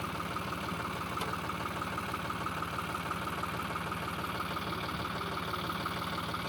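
Tractor engine idling steadily with an even, fast pulse.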